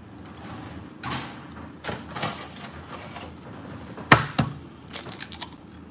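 Light kitchen knocks and taps, then two sharp cracks about four seconds in as an egg is rapped against the hard edge of a glass cooktop to crack it.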